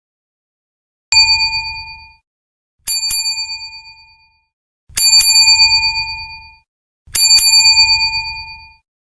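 A small bell rung four times, about two seconds apart, most rings a quick double strike that rings on and fades over about a second.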